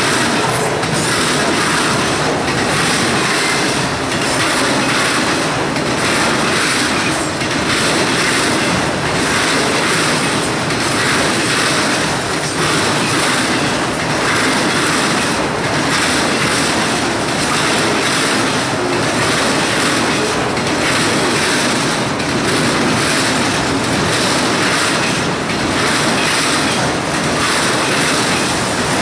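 Autorack freight cars rolling past at track speed: steady loud rumble and clatter of steel wheels on rail, with a regular beat about every second and a half.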